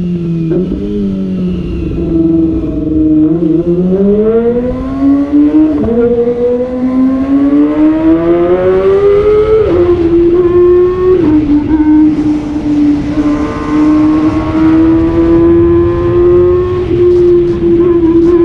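Kawasaki ZX25R's 250 cc inline-four engine under way: the revs climb, fall sharply at an upshift about six seconds in, climb again, fall at two more shifts near ten and eleven seconds, then hold a steady high-pitched cruise.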